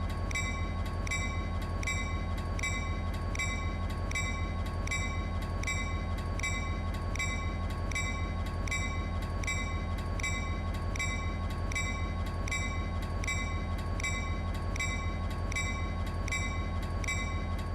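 Leslie A200 electronic railroad crossing bell ringing steadily, just under two even dings a second, over a constant low hum and a thin steady tone.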